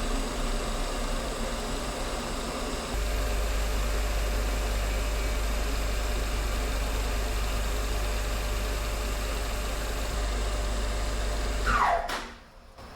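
Electric motor of a small machine tool running steadily with a low hum, getting a little louder about three seconds in. Near the end it is switched off, and its pitch falls quickly as it spins down.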